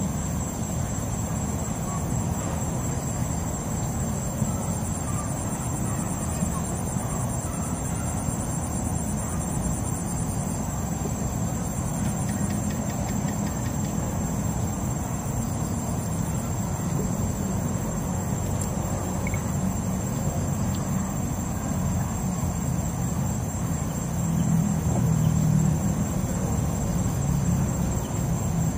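Crickets trilling steadily in a continuous high-pitched chorus, with a second, higher trill joining for a few seconds early on, over a low rumbling background noise.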